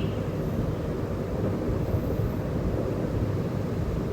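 Steady low background rumble, even throughout with no distinct events.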